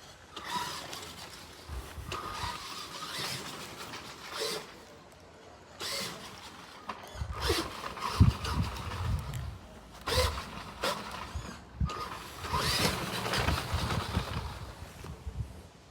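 Tamiya Clodbuster RC monster truck's twin electric motors whining in repeated bursts of throttle, with gear and drivetrain noise and a lower rumble in the longer runs, on a 2S LiPo through a generic two-motor ESC.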